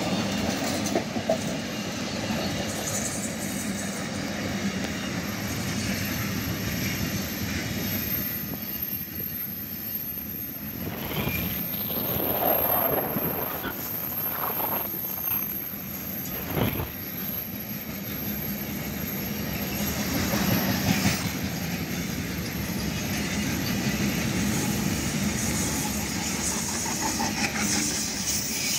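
Container freight train's wagons rolling past at speed, a steady run of wheel and rail noise with no letup.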